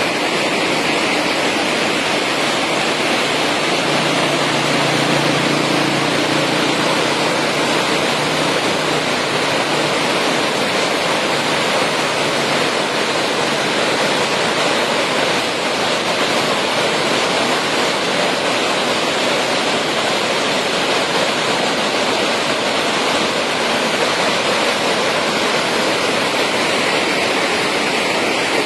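Floodwater of a swollen river rushing in a steady, loud roar.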